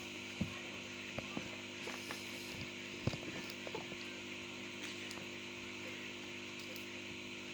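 Scattered sharp clicks and taps of a tool working at the hard plastic case of a refrigerator compressor overload protector, over a steady low hum.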